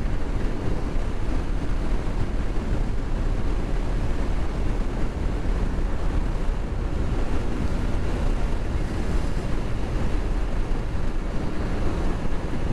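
Heavy wind noise on a motorcycle-mounted camera's microphone at highway speed, about 95–100 km/h: a steady, even rushing with a strong low rumble.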